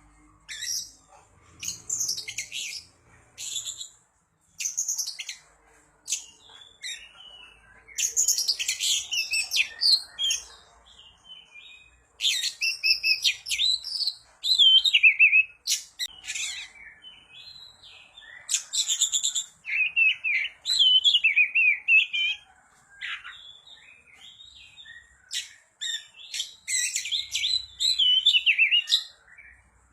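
Oriental magpie-robin (kacer) singing a long, varied song: bursts of high whistled, warbled and gliding notes mixed with rapid chattering phrases, separated by short pauses.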